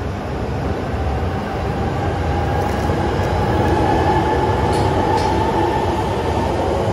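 JR East E926 "East i" Shinkansen inspection train passing close by along the platform, its running rumble growing louder as it draws level. A steady whine sits over the rumble, with a few faint high clicks about five seconds in.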